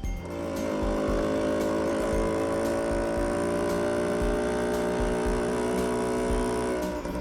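Motor scooter engine running at a steady pitch. It climbs slightly as it starts, holds for about six and a half seconds, and stops shortly before the end.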